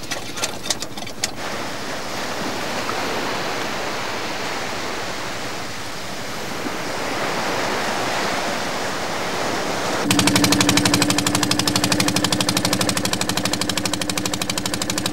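A few sharp knocks, then the steady wash of small waves breaking on a beach. About two-thirds of the way in, a fishing boat's inboard diesel engine cuts in loudly, running with a fast, even knocking beat.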